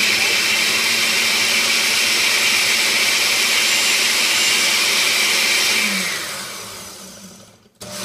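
Countertop blender running at full speed, pureeing onion with water into juice; the motor whine holds steady, then winds down and stops near the end.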